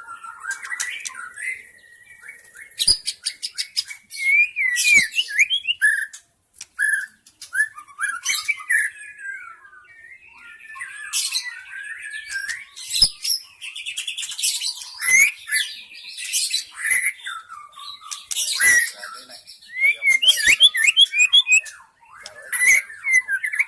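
White-rumped shama (murai batu) singing: a varied run of clear whistles and quick rising and falling warbled notes mixed with harsh rasping notes, in phrases broken by short pauses.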